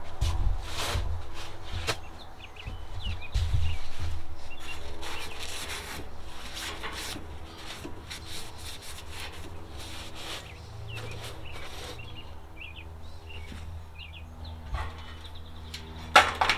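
Rubbing, knocking and clattering from handling the kerosene heater and its fuel during refilling, heaviest in the first few seconds, over a faint steady hum.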